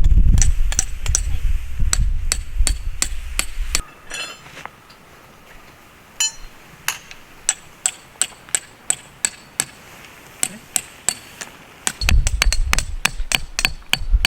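Hammer blows struck over and over with a sharp ringing tone, about two a second through the middle and faster and louder near the end. A low rumble sits under the start and the end.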